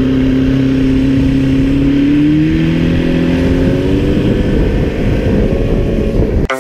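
Boat's outboard motor running at speed, its pitch rising gradually as the boat accelerates, over a steady rush of water and wind. It cuts off abruptly near the end.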